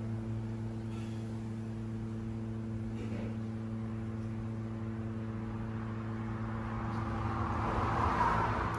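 A steady, low mechanical hum with a constant pitch, with a wash of noise that swells near the end.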